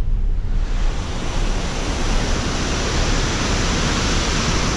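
A steady, loud rushing hiss that swells in during the first half second, over the low rumble of a car driving on a broken mountain road.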